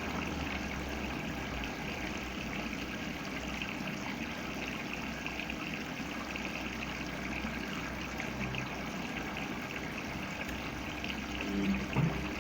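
Samsung washing machine filling: a steady rush of water running into the drum during the fill stage, with a low hum underneath. A brief louder low sound comes near the end.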